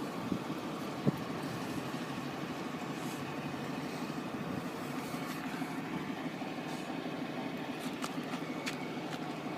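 A vehicle engine idling steadily, a low hum under a wash of outdoor noise, with two short sharp clicks in the first second or so.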